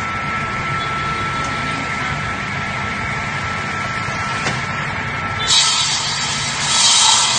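Ice block cutting machine's motor running steadily with a constant whine. About five and a half seconds in, a louder hissing noise joins it.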